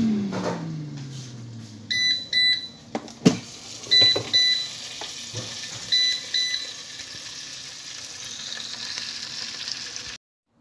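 Air fryer's fan motor winding down as its cycle ends, its hum falling in pitch, then the air fryer beeping in pairs three times, about two seconds apart. A few sharp knocks and a faint sizzle of the roasting pork run underneath.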